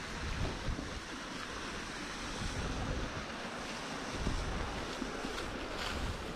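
Wind buffeting a GoPro Hero8's microphone while a mountain bike rolls along a dirt trail, a steady rushing noise with gusty low rumble and faint knocks from the tyres and bike.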